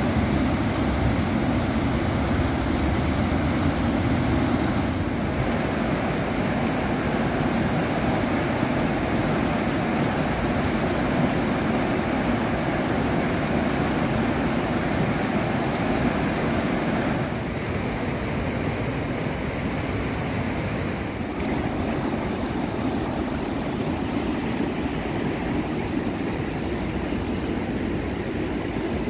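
Steady rushing of a waterfall and the white-water rapids below it, changing slightly in character about five and seventeen seconds in.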